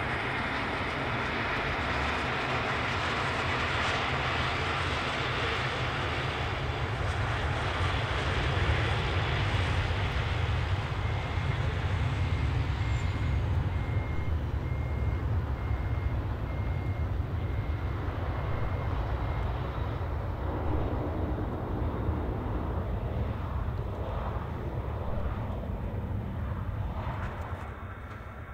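Airbus A320 airliner's jet engines during the landing rollout: a broad, steady roar that swells for several seconds after touchdown, then eases off as the aircraft slows down the runway.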